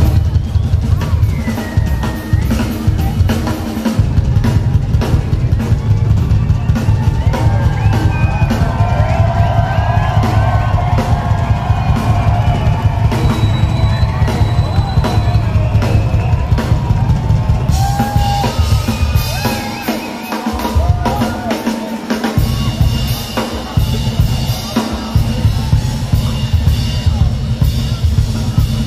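Live drum kit solo: fast, dense bass drum, snare and rimshot hits, with the bass drum dropping out for about two seconds a little past the middle before returning.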